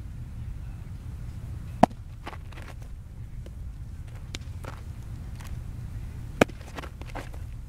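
A baseball smacking into a catcher's mitt twice, each a single sharp pop, about four and a half seconds apart, over a steady low rumble.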